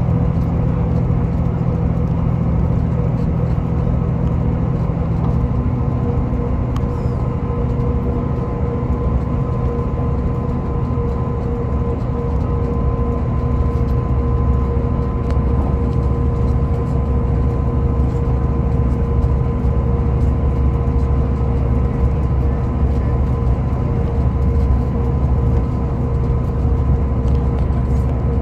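Class 158 diesel multiple unit heard from inside the carriage while running at speed: a steady underfloor diesel engine drone and wheel-on-rail rumble, with a thin steady whine over it. The low engine note shifts about five seconds in.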